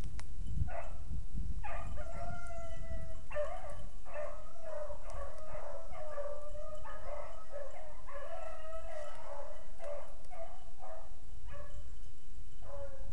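Beagles baying on a rabbit's scent trail, long drawn-out howling notes coming almost without pause. They break off about a second and a half before the end, then start again.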